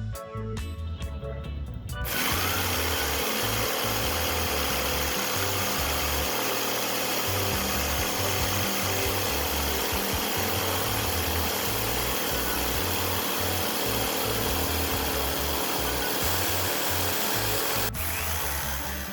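Power tool running steadily as it cuts an opening through a sheet of starboard marine plastic. It starts about two seconds in and stops shortly before the end, over background music.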